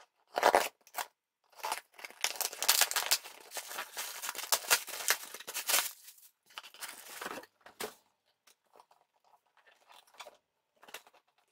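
Scissors cutting the packing tape on a cardboard shipping box, then a dense few seconds of tearing and rustling as the cardboard flaps are pulled open over plastic air cushions. Near the end only faint handling sounds.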